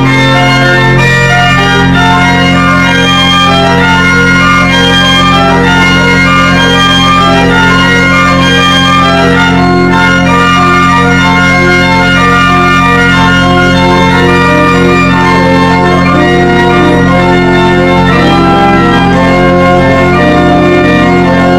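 Restored church pipe organ playing a many-voiced piece: low notes held steadily underneath while quick upper lines move note by note above.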